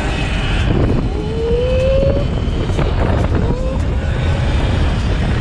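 Motor whine of a 72-volt Sur-Ron electric dirt bike rising in pitch as it accelerates, once at length about a second in and briefly again later, under heavy wind rumble on the microphone.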